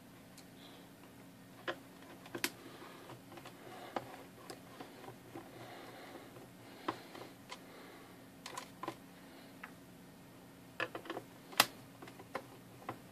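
Scattered light clicks and taps of a screwdriver working screws out of a plastic clock back cover, along with the case being handled; the loudest click comes near the end.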